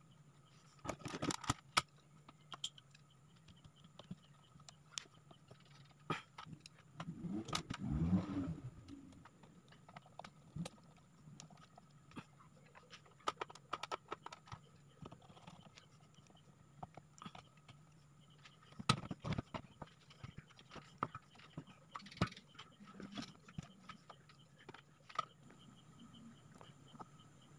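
Handling noise from wiring work on an amplifier: scattered small clicks, taps and scrapes of wires and a soldering iron. There is a denser scraping rustle about a third of the way in and another cluster of clicks past the middle, over a faint steady hum.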